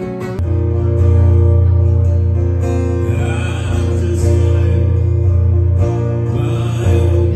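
Instrumental music: strummed acoustic guitar over loud held bass notes that come in about half a second in and change every second or two.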